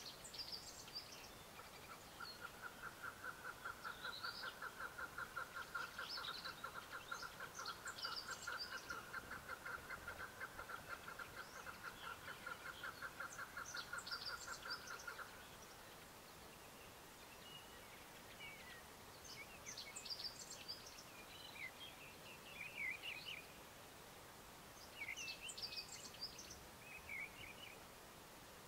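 Chukar partridge calling: a long run of rapid, evenly repeated clucking notes that starts about two seconds in and stops after about thirteen seconds. Small birds chirp in short high notes throughout, more often in the second half.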